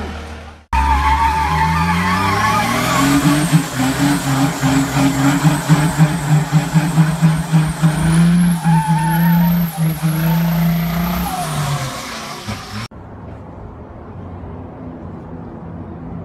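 An old diesel pickup doing a burnout while rolling coal. The engine revs up over a couple of seconds and holds high, with a thin high whine climbing alongside it, over the hiss of spinning, smoking tyres, then drops back. Near the end it cuts to a much quieter low vehicle rumble.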